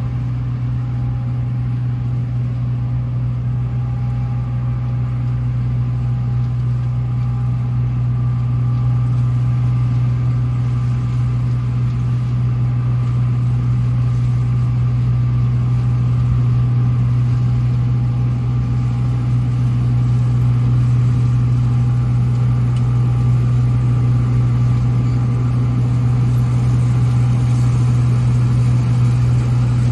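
Diesel engine of heavy harvest machinery running steadily under load, a deep even hum with a faint higher whine, slowly growing a little louder.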